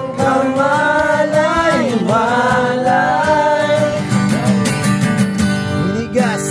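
Acoustic guitar strummed in a steady rhythm while a man sings over it in long, wavering held notes.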